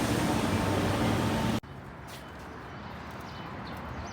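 A loud, steady vehicle rumble with a low hum cuts off abruptly about one and a half seconds in. It gives way to a quieter outdoor background with short, high, falling bird chirps.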